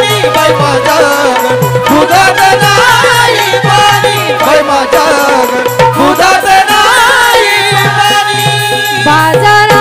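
Marathi folk song music: a bending melody line over tabla-style drumming, with a steady beat throughout.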